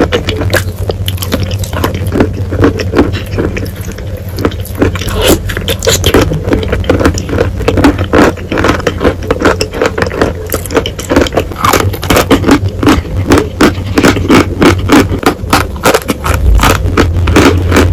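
Close-miked crunching and chewing of wet chalk with clay paste: a rapid, irregular run of crackly crunches that grows denser and louder about halfway through, over a steady low hum.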